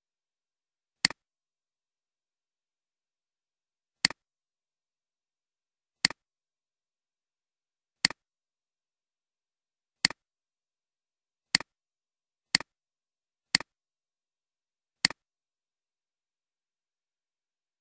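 Nine single, sharp computer mouse clicks, spaced about two seconds apart and then about a second apart, with dead silence between them.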